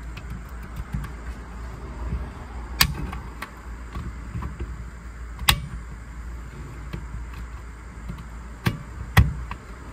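Clip-on backup monitor being latched onto a car's rear-view mirror: four sharp clicks and knocks, the last two close together near the end, over a low steady hum.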